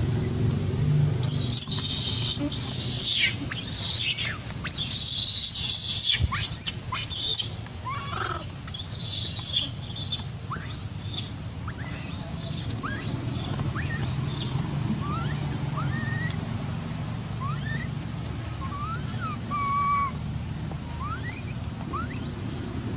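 Baby macaque crying: harsh, loud screams over the first several seconds, then shorter rising and falling squeals that grow fainter and lower toward the end. A steady high-pitched whine runs underneath.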